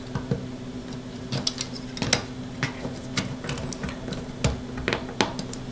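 Scattered light clicks and taps of carbon fiber drone frame parts being handled, as V-shaped carbon fiber landing legs are pushed onto the frame's arms to tighten them. A steady low hum runs underneath.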